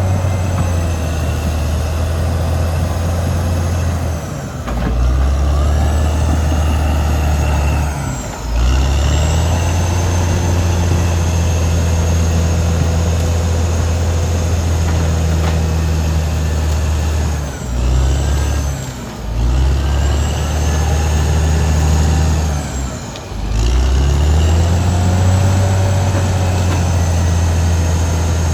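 Caterpillar D6R XL bulldozer's diesel engine running hard, its pitch dipping and climbing back about five times. A high whine rises and falls with the engine.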